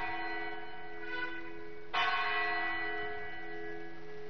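Church bell tolling: one strike about two seconds in, its many overtones ringing on and slowly fading, while the ring of the previous strike dies away at the start.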